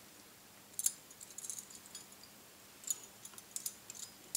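Metal bangles on a wrist jingling in short, faint bursts of high clinks as the hand sprinkles sliced pistachios: once about a second in, a few around a second and a half, and more around three seconds and at the very end.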